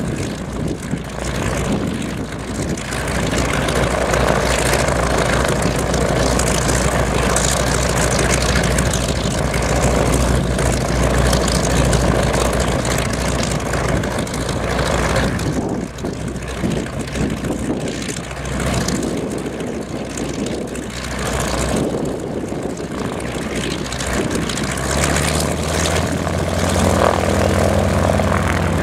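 North American SNJ's nine-cylinder Pratt & Whitney R-1340 radial engine and propeller running at low power as the plane taxis, a steady low drone. It grows louder and fuller near the end.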